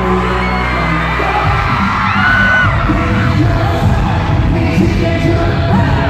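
Live K-pop concert music played loud over a venue sound system: a song with singing and a heavy bass beat, with fans yelling along. About a second and a half in, the bass changes from a held line to a choppier beat.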